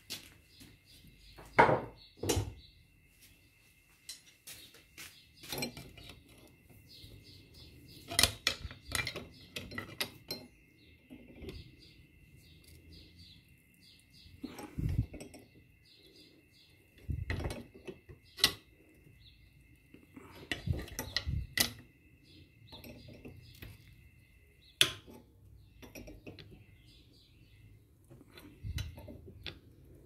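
Irregular metal clinks and knocks from a homemade welded pulley puller and a steel bar, being fitted and worked to pull the pulley off a washing-machine motor.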